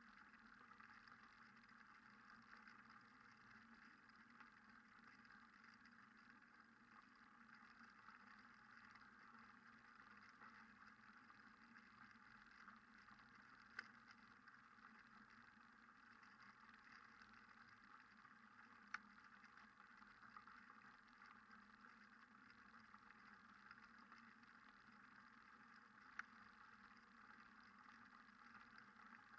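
Near silence: a faint steady hiss, broken by three faint clicks.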